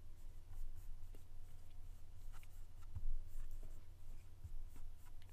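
Stylus writing on a tablet: light scratches and small taps as letters are written, over a low steady hum.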